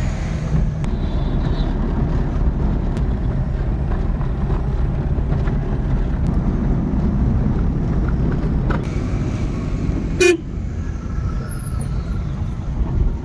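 Road vehicle running with a steady low rumble, with one short horn toot about ten seconds in.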